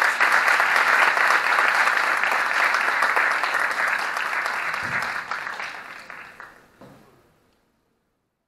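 Audience applauding at the end of a talk, a dense clatter of many hands clapping that dies away about seven seconds in.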